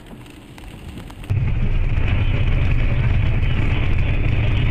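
Faint vehicle cabin noise with a few light clicks, then, just over a second in, loud steady vehicle rumble and road noise with a hiss on top.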